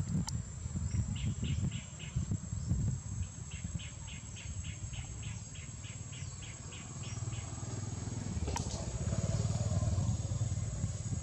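Outdoor daytime ambience: a steady high insect drone with a run of rapid repeated chirps, about three or four a second, over a low rumble, and a single sharp click about eight and a half seconds in.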